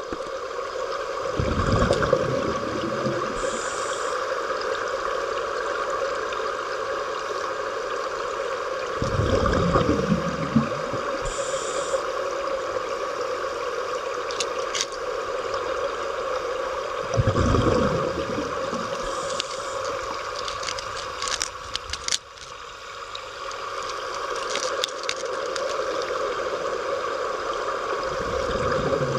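Scuba diver breathing through a regulator underwater: a burst of exhaled bubbles rumbles about every eight seconds, each followed by a short high hiss. A steady underwater hum runs beneath.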